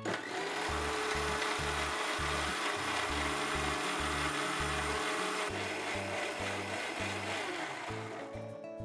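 Electric mixer-grinder with a steel jar running steadily, wet-grinding a raw gravy paste of onion, tomato, cashews and whole spices with a little added water. The motor winds down and stops near the end. Background music with a steady beat plays underneath.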